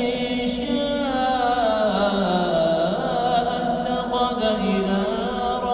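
Quran recitation: a single voice chanting in long, melodic held notes that bend and glide in pitch.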